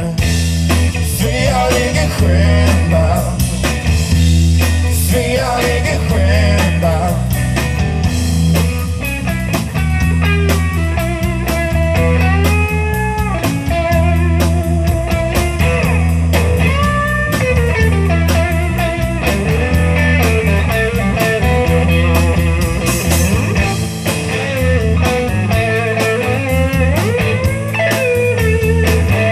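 Live blues-rock band playing: electric guitar with gliding, bent notes over steady bass and drums.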